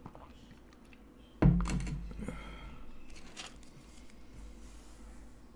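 A sudden thump about a second and a half in, dying away over about a second, followed by a few fainter clicks and rustles.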